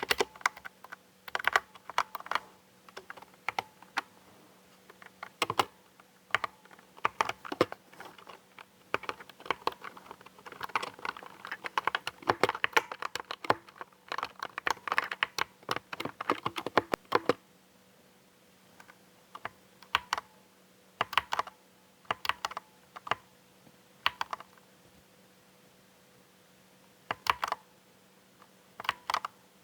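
Typing on a Fantech MK872 Optilite mechanical keyboard with black linear optical switches. Quick runs of keystrokes are densest through the middle, thinning out to a few separate key presses near the end.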